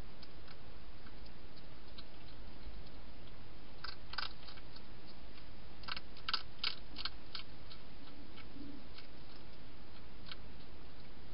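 European hedgehog crunching dry food inside a plastic feeding box: scattered sharp clicks, with two short runs of louder crunches around the middle, over a steady hiss.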